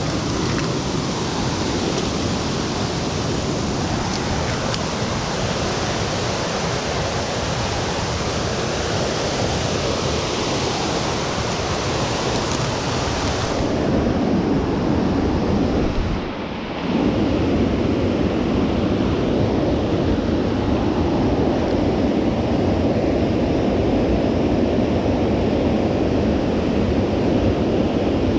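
Steady, loud rushing noise with no distinct events. Its tone changes about fourteen seconds in, and it dips briefly a few seconds later.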